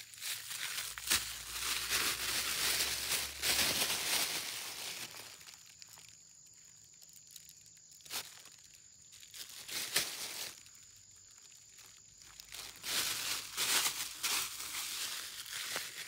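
Plastic bag of grain bait crinkling and rustling as it is handled, in two spells with a quieter stretch between them in which there are a couple of sharp clicks.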